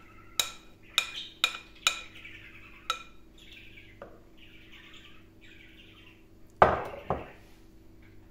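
A metal spoon tapping the rim of a glass mixing bowl five times, each tap ringing briefly, then scraping batter off the inside of the bowl. Near the end come two heavier knocks as the glass bowl is set down on the countertop.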